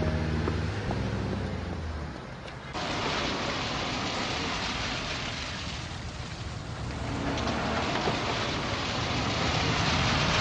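Music ends about two seconds in, then rain falls in a steady hiss on wet pavement. A car drives up over the wet ground, its engine and tyres growing louder near the end.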